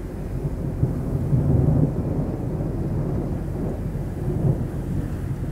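Low, rolling thunder from a supercell thunderstorm, swelling about a second and a half in and again a little past four seconds.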